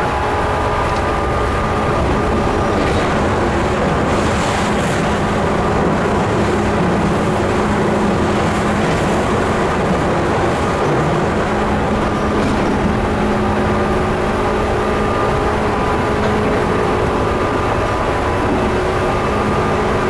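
Tobu 9000 series armature-chopper-controlled electric train running at steady speed, heard from inside a motor car: wheels on the rails with a steady hum.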